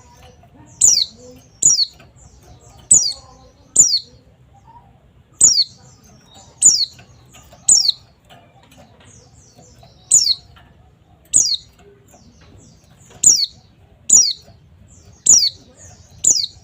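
White-eye (pleci) giving about a dozen short, sharp calls, each falling steeply in pitch, with gaps of one to two seconds between them. It is a pleci 'therapy' recording, played to get a pet white-eye that has gone silent to sing.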